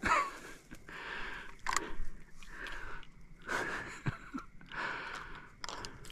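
A person breathing heavily close to the microphone, breaths in and out a little more than a second apart.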